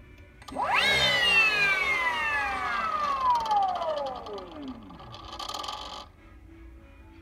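Denzel 7500 W brushless electric motor, on a Kelly sine-wave controller and spinning unloaded with the chain off, whines sharply up to speed, then falls steadily in pitch over about four seconds as it slows. A short buzz follows about five seconds in.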